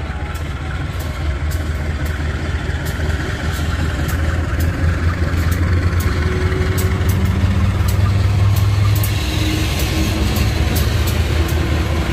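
KAI CC201 diesel-electric locomotive running as it approaches and passes close by, its engine growing louder to a peak about two-thirds of the way in, with a regular light clicking.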